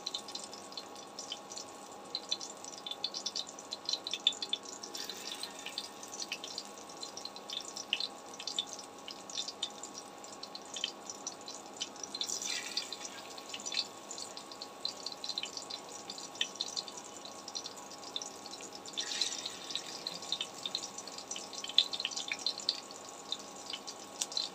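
Portions of moringa-leaf and gram-flour pakora batter sizzling and crackling in hot refined oil in a non-stick frying pan, with a steady fine crackle that flares up a few times as fresh portions are dropped in. A steady low hum runs underneath.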